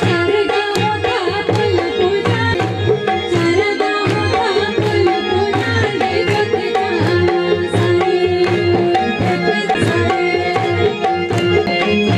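Live devotional music: an electronic keyboard holding sustained notes over a steady hand-drum beat, with a voice singing along.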